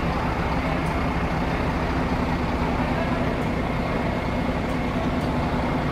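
Heavy vehicle's diesel engine running steadily at idle, a low even hum that does not change.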